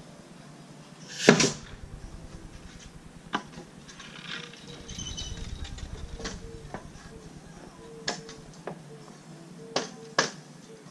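A few sharp knocks and clicks of hand-tool work on a wooden rail fence, irregularly spaced, the loudest and sharpest about a second in.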